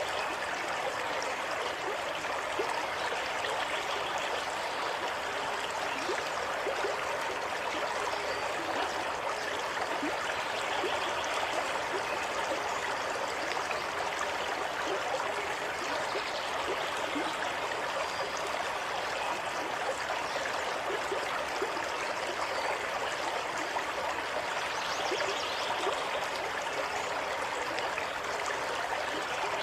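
Naturally running water flowing steadily and evenly, with no pauses or changes.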